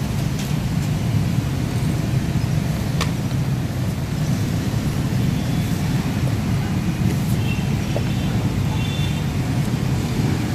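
Steady low rumble of street background noise, with a single sharp clink about three seconds in.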